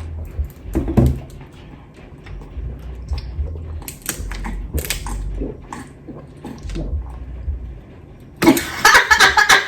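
Eating sounds at a table: scattered wet smacks and clicks of chewing and handling seafood, with low bumps against the table or microphone. Near the end comes a sudden loud burst of rapid sound that is described right after as very loud.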